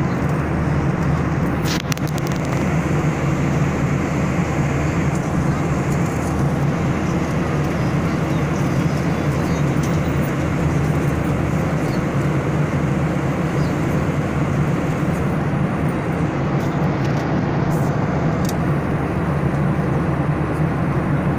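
Airliner cabin noise in flight: a steady low drone under a broad hiss from the engines and the airflow over the fuselage.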